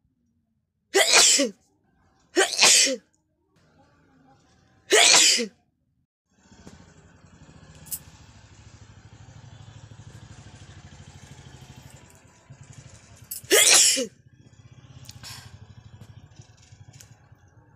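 A person sneezing four times, each sneeze short and loud: three in quick succession in the first six seconds, then one more about thirteen seconds in. A faint low hum fills the gap between them.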